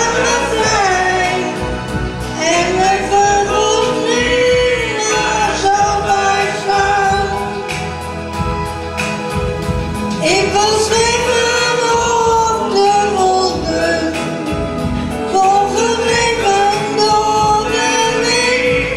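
A woman singing a Dutch-language song into a handheld microphone over instrumental accompaniment, in long, held phrases.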